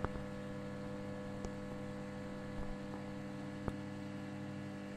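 Microwave oven running: a steady hum with a few faint ticks, in the last seconds of its heating cycle.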